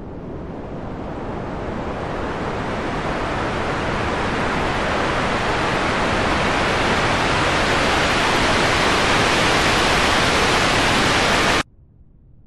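A swell of hissing noise, rushing like wind or surf, that grows steadily louder and brighter for about eleven seconds, then cuts off abruptly near the end.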